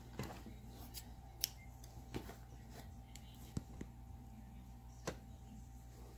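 Faint handling noise from crochet work: a few scattered light clicks and ticks as the crochet hook, yarn and crocheted fabric are handled, over a steady low hum.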